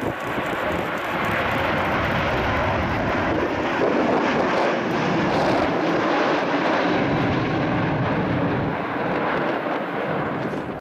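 Airbus A350's twin Rolls-Royce Trent XWB turbofans at takeoff thrust: a loud, steady jet roar that swells in the first second or two as the airliner lifts off and climbs steeply overhead.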